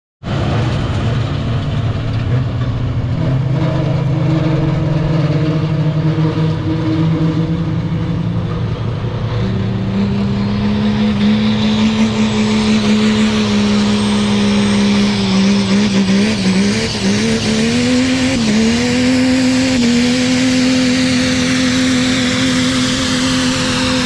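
Pickup truck engine working under heavy load as it pulls a weight-transfer sled. The revs step up about ten seconds in, waver up and down for a few seconds, then hold steady and higher.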